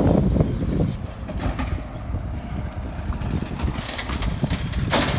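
Volvo automated side-loader garbage truck's diesel engine running while its hydraulic arm lifts a wheeled trash cart over the hopper, with a loud crash near the end as the cart is tipped.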